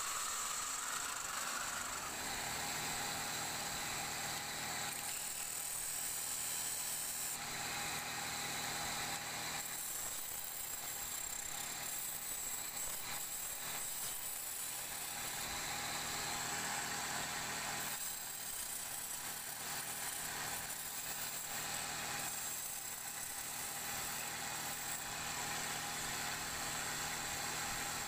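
Wood lathe running with a turning tool cutting into a spinning wooden leg blank: a steady motor whir under the hiss of the cut, which swells and eases every few seconds as the tool is worked along the wood.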